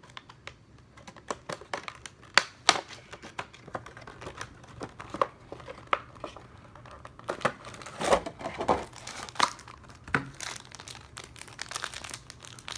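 Speed-cube packaging being opened by hand: irregular crinkling and crackling with sharp clicks and a little tearing.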